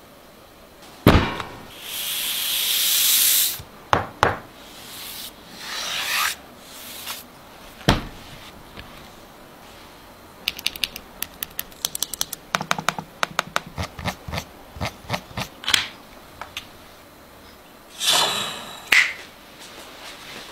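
Handling sounds of an ASUS ROG gaming laptop: a sharp knock about a second in, then rubbing and sliding, a few more knocks, a run of quick clicks in the middle, and another rub with a click near the end.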